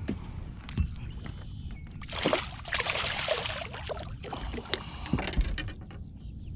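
Water splashing and sloshing as a hooked largemouth bass struggles at the surface beside a boat, loudest from about two to three and a half seconds in.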